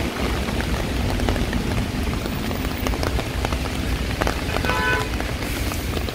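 Heavy downpour: dense, steady rain with many close individual drops hitting. A short pitched tone sounds briefly a little under five seconds in.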